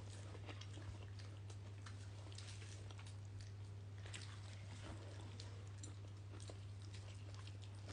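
A child chewing food close to the microphone: faint, irregular wet clicks and smacks of the mouth, over a steady low hum.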